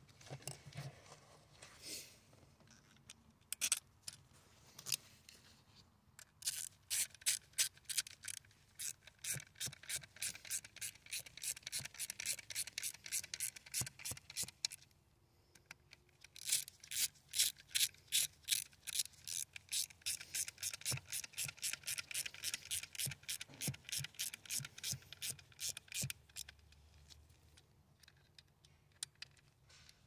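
Screws being driven by hand into a car seatbelt retractor housing with a Torx T15 screwdriver. It makes a run of short, evenly repeated clicking, scraping strokes, about three or four a second, in two long spells with a brief break around the middle.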